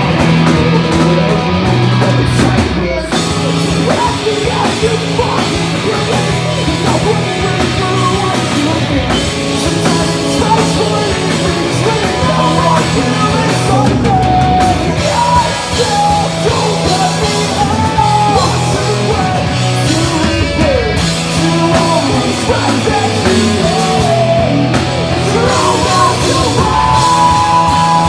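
Live pop punk band performing: distorted electric guitars and drums with a singer's voice over them.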